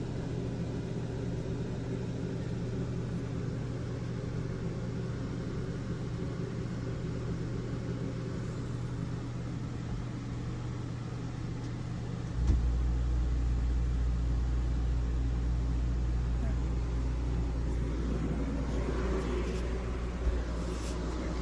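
Steady mechanical hum with a few fixed tones. A deeper low rumble cuts in suddenly about twelve seconds in and runs on steadily.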